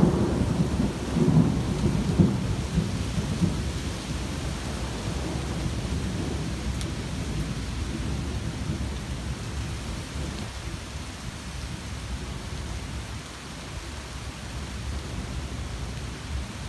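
Thunder rumbling low and fading away over the first few seconds, then steady rain falling through tree leaves.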